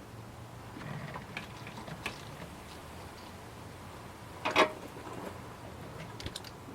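Scattered light clicks and rattles of small car parts being handled, with a louder clatter about four and a half seconds in and a sharp knock at the very end, over a faint steady hum.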